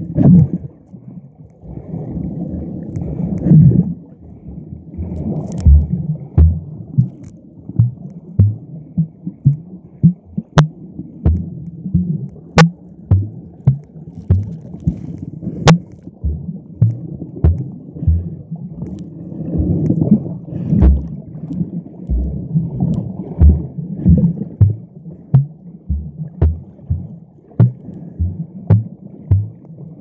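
Muffled underwater sound from a camera held under the sea: water churning against the housing, with repeated low thumps and a few sharp clicks of the case being handled. The thumps come more often in the second half, about one or two a second.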